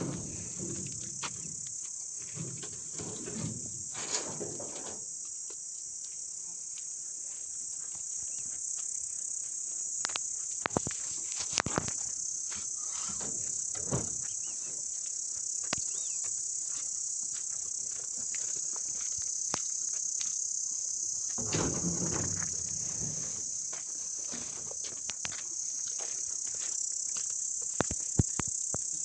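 Continuous high-pitched chorus of crickets or other insects, with scattered light clicks and knocks over it.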